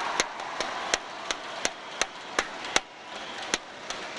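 Arena crowd clapping in unison, sharp claps about three a second, just after a point is won; a crowd cheer dies away as the clapping starts.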